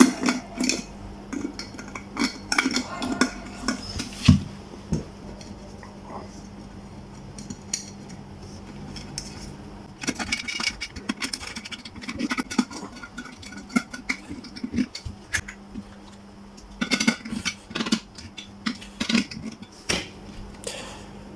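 Clicks, taps and clatter of hard kettle parts being handled and fitted together, in three bouts, with quieter gaps between. A steady low hum runs underneath.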